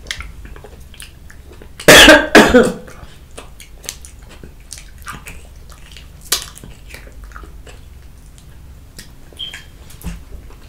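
A person coughing hard in a short burst about two seconds in, amid close-miked eating sounds: small clicks and mouth noises of chewing and handling food.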